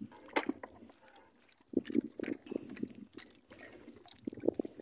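Water splashing and dripping as a fishing longline is pulled up by hand over the side of a small outrigger boat, with scattered light knocks from the line and the wooden hull.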